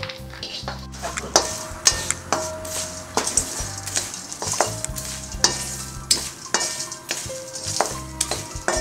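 A spatula repeatedly scraping and clicking against a steel kadhai as chopped dry fruits are stirred and dry-roasted, in short irregular strokes.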